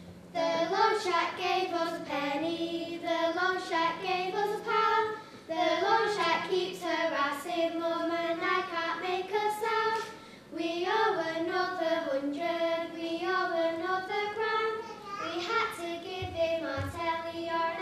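Child singing a slow melody, holding notes, in phrases with short breaks about five and ten seconds in.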